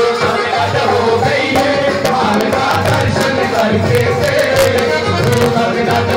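A Hindu devotional bhajan sung live by a man's voice through a microphone, with a steady hand-drum rhythm and sustained instrumental tones underneath.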